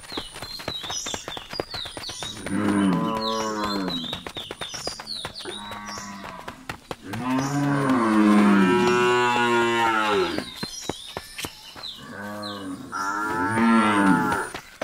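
Cows mooing three times in long, drawn-out calls: one a few seconds in, a longer and louder one of about three seconds midway, and a third near the end. Between the calls come the crisp tearing and chewing of grass as the cattle graze, and small birds chirping.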